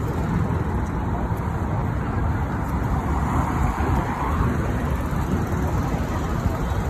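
Steady city road traffic noise, swelling briefly around the middle.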